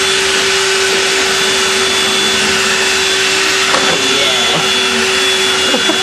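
Hoover vacuum cleaner running steadily: a loud, even rush of air with a constant motor tone.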